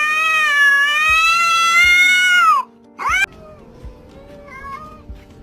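A cat's long drawn-out meow that holds for about two and a half seconds and then falls off, followed at about three seconds by a short, rising meow.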